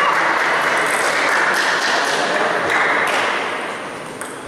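Spectators clapping and cheering after a table tennis point is won, dying away about three seconds in.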